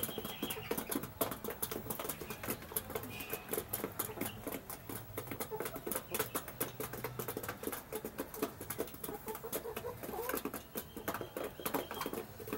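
Chickens pecking feed off a hard dirt floor: a rapid, irregular patter of beak taps, with a faint soft chicken call now and then.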